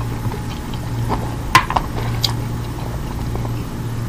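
Fingers picking through rice and roast meat by hand, with scattered small clicks and squishes over a steady low hum; a handful is lifted to the mouth near the end.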